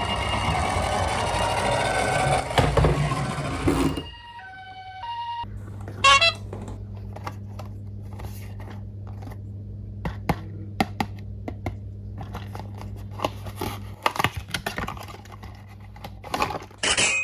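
A toy emergency vehicle's electronic siren sound plays loudly for about four seconds and ends in a short run of stepped beeps. After that comes a steady low hum with scattered clicks and taps of plastic being handled.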